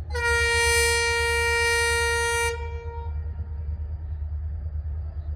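Diesel locomotive horn sounding one long steady blast of about two and a half seconds, the departure signal, over the low rumble of the train.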